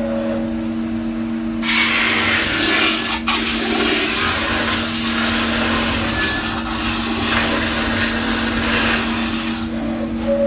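CNC metal-spinning lathe running with a steady two-tone hum, and a long rubbing hiss, typical of the forming roller pressing on the spinning sheet-metal blank, that starts about two seconds in and stops near the end. A sharp click sounds about three seconds in.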